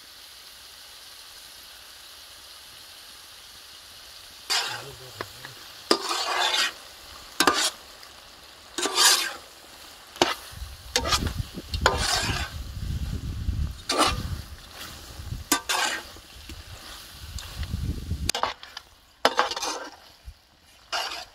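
Spiced mutton pieces sizzling on a hot tawa: a steady sizzle at first, then from about four seconds in, irregular scraping strokes as the meat is stirred and tossed on the pan, with a low rumble through the middle stretch.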